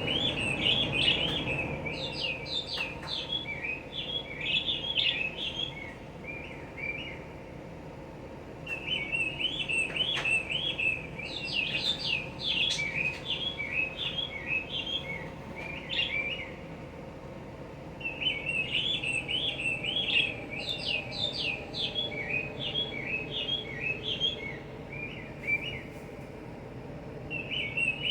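A small bird chirping and twittering in fast runs of short, high notes, in three long bouts of several seconds each with brief pauses between, starting again near the end.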